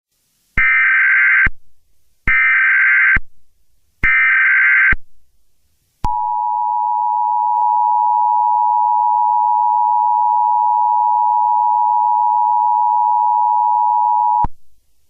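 Emergency Alert System signal: three short bursts of digital SAME header data, a harsh warbling screech about a second long each, then the steady two-tone attention signal held for about eight seconds before it cuts off. It marks the start of an emergency broadcast, with the voice message to follow.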